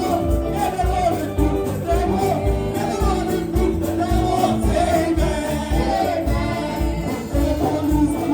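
Gospel praise song: voices singing over a steady low beat of about two pulses a second, with percussion.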